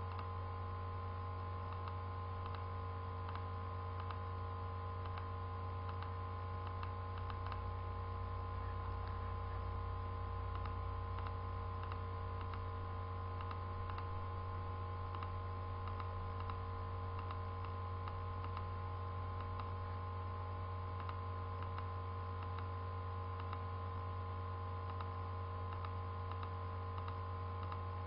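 Computer mouse clicking every second or so, light irregular clicks over a steady low electrical hum with a few fainter steady tones.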